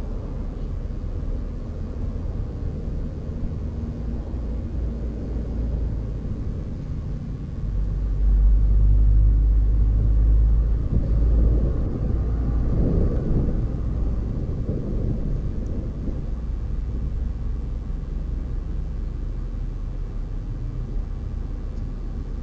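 Low, steady rumble of a vehicle travelling along a road, swelling louder about eight seconds in for a few seconds before settling back.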